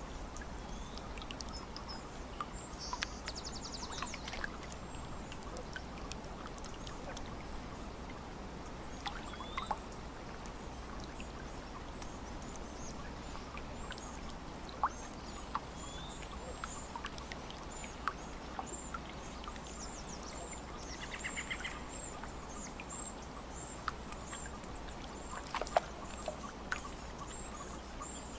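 Lakeside ambience: water lapping, with small splashes and ticks over a steady wash, while songbirds chirp high and often. Short trills come about three seconds in and again around twenty-one seconds.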